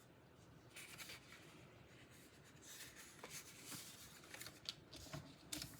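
Faint scratching and rubbing of a tool drawn along cardstock as it is scored, with a few light taps.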